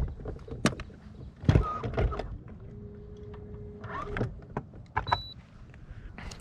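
Scattered knocks and clicks of gear being handled in a fishing boat, with a steady motor hum for about a second and a half near the middle, likely the trolling motor holding position on spot lock.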